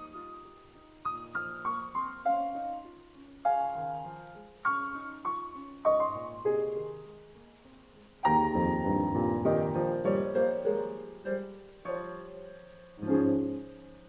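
Background piano music: struck notes and chords, a slow melody that grows fuller and louder about eight seconds in.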